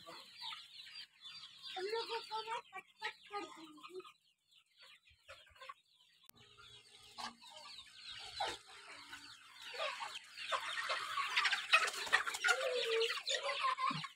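A flock of hens clucking: scattered clucks in the first few seconds, a quieter stretch, then many overlapping clucks from about ten seconds in.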